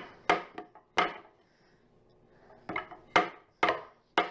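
Rubber mallet striking a wooden chair leg and rail: a run of sharp knocks, a pause of about a second and a half, then a steadier run of blows about two a second. The blows are driving apart a loose glued joint that is also held by nails.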